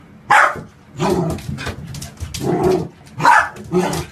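Golden retriever puppy barking, about five short barks in a row, the loudest near the start and again a little past three seconds in.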